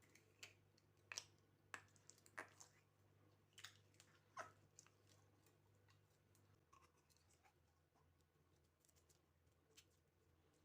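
Near silence, with faint scattered clicks and crackles, most of them in the first half.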